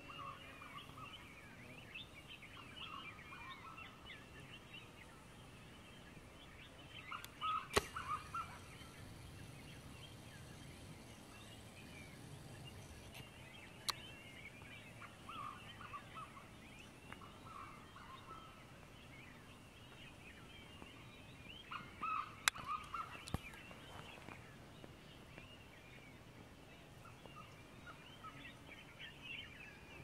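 Dawn chorus: many small birds chirping and twittering together throughout, with a lower-pitched call that comes back in short runs every several seconds. A few sharp clicks cut through, the loudest about eight seconds in and again a little after twenty-two seconds.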